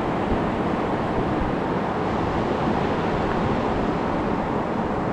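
Ocean surf breaking on a beach, a steady wash of noise, with wind buffeting the microphone.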